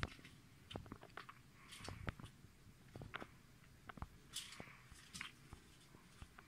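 Near silence: a quiet room with faint scattered clicks and soft rustles, one slightly louder rustle about four seconds in.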